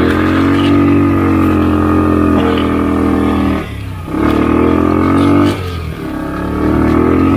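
Motorcycle engine revving under load in low gear as the bike forces through tall grass. The revs swell and ease, dropping briefly twice (about half-way and again a couple of seconds later) before picking back up.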